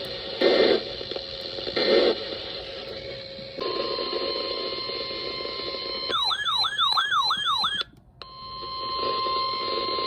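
NOAA Weather Radio alert signals over radio hiss. First come two short data bursts of the SAME header. About three and a half seconds in, the steady 1050 Hz warning alarm tone starts. Midway it gives way for under two seconds to a fast siren-like warble, then a brief dropout, and the steady tone resumes, announcing a new severe thunderstorm warning.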